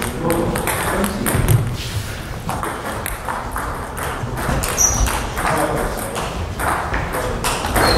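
Table tennis balls clicking and bouncing in a large gym hall: a scattering of sharp light ticks, with one low thud about one and a half seconds in.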